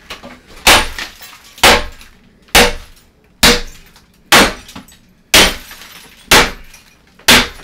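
An old bathtub being broken apart with an axe: eight heavy strikes about one a second, each a sharp crash with a short ringing tail.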